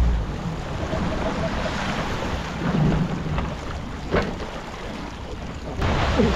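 Boat running at sea: wind buffeting the microphone over the rush and splash of the wake, with the outboard motor running low underneath. The sound grows louder again near the end.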